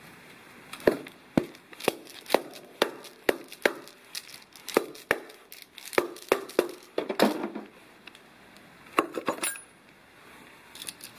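Irregular sharp metallic clinks and knocks of a VW Passat 2.0 TDI turbocharger being taken apart by hand, its turbine housing coming off the centre cartridge as metal parts and tools are handled.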